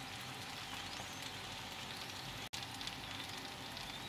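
Sliced onions frying in hot oil in a nonstick pan: a steady sizzle with fine crackles and pops. It cuts out for a moment about two and a half seconds in.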